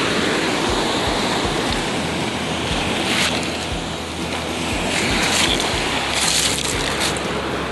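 Surf breaking and washing over a pebble beach, a steady rushing sound that swells a little in places, with wind rumbling on the microphone.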